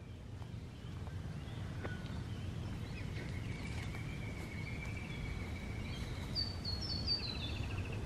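Australian bush birds calling over a steady low outdoor rumble: one long held whistle about three seconds in, then a run of quick, stepping-down high notes and a short fast trill near the end.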